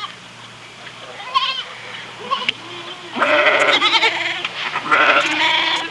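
Goats bleating: a short quavering bleat about a second and a half in, then longer wavering bleats from about three seconds in and again near the end.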